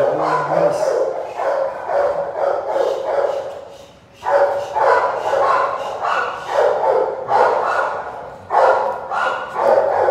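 A large three-month-old puppy barking in repeated short bursts while tugging on a toy, with a brief pause about four seconds in.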